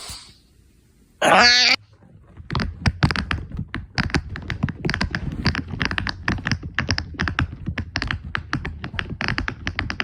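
A sharp click, then about a second in a brief loud buzzy sound with a wavering pitch, followed by a long run of rapid irregular clicks or taps, about five a second.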